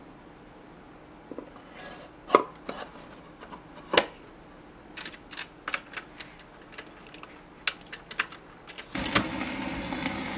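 RCA Victor automatic record changer cycling: a run of mechanical clicks and knocks, two of them louder, as the record drops onto the platter and the tonearm swings over. Near the end the stylus sets down and the steady surface hiss of the record's lead-in groove begins.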